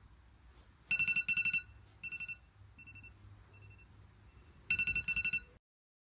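Smartphone ringing with a trilling ringtone: a burst of rapid pulsing rings about a second in and another near the end, with fainter short beeps between.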